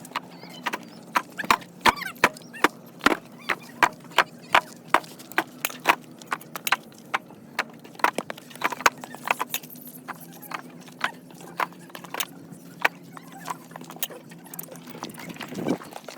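Sharp hard clacks, irregular and about two to four a second, over a steady low machine hum.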